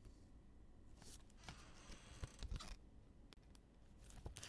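Faint rustling and light clicks of trading cards and their packaging being handled, with a longer rustle from about one and a half to nearly three seconds in.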